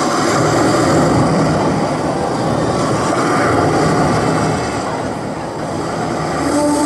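Audience applause, a dense, steady clapping from a large crowd. Near the end, music with long held notes starts over it.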